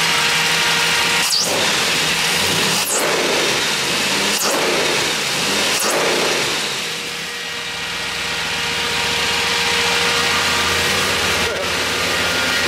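502 big-block Chevrolet V8 fed by a Holley Sniper EFI throttle body, revved by hand at the throttle linkage: about four quick blips roughly a second and a half apart, the revs rising and falling, then settling back to a steady idle. An electric radiator fan runs with a steady rush throughout.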